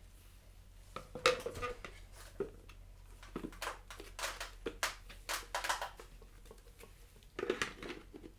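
Plastic parts of an Einhell cordless handheld vacuum being handled and fitted back together after emptying, giving a run of irregular light clicks and knocks.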